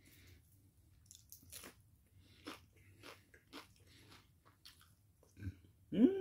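Close-up chewing of a crispy fried chicken taquito: a run of faint crunches, with a short hum-like vocal sound near the end that rises then falls in pitch.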